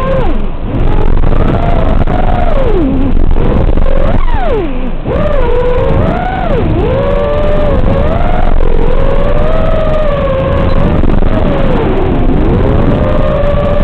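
Brushless motors and props of a 5-inch FPV freestyle quadcopter whining, the pitch dropping sharply, then swooping up and down over and over as the throttle is worked through flips and dives.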